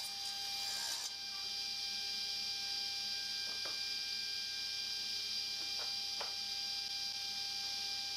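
A steady electrical hum with a high whine running through it, with three faint clicks in the middle. A rasping, sawing noise stops about a second in.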